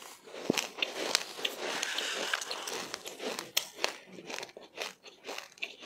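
Close-mouthed chewing of sesame seeds with passionfruit, crunching and crackling in a run of many sharp little cracks that thicken into a dense crackle for a couple of seconds.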